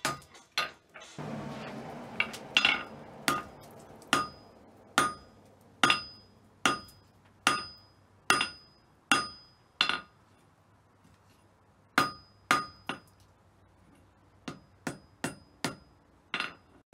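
Hand hammer striking a hot lump of bloomery iron on a steel anvil, each blow ringing, a little more than one a second. The blows are kept light so the slaggy bloom consolidates without crumbling. There is a short pause about ten seconds in, then a few more blows, the last ones softer.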